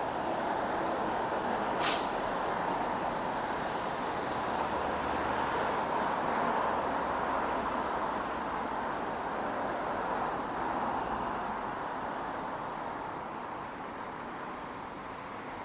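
Steady traffic noise from a busy city street, with one short, sharp hiss about two seconds in. The traffic eases slightly near the end.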